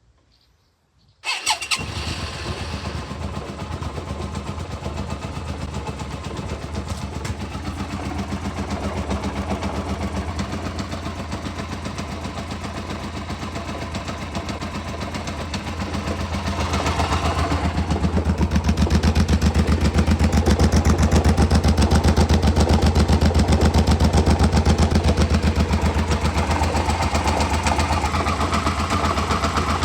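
2007 Hyosung GT650R's V-twin engine starting about a second in, then running at low revs with an even pulsing beat, getting louder a little past halfway. At these low revs it makes a rhythmic galloping, grinding noise that the owner cannot place and fears may be a failing bearing.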